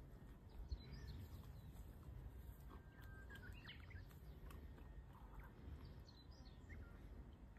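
Faint outdoor ambience: small birds chirping now and then, mostly in the middle and later part, over a low rumble. One short click comes under a second in.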